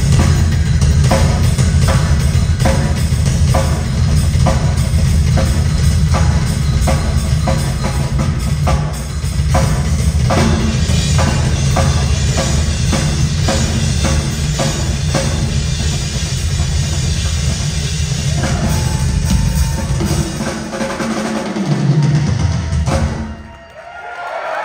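Rock drum kit played hard in a live solo: bass drum pounding under snare, tom and cymbal strikes, with faster rolls midway. It cuts off abruptly near the end.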